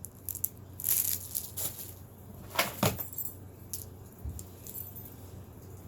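Small items being handled and sorted by hand: scattered light clicks, clinks and packaging rustles, loudest about a second in and again near the middle.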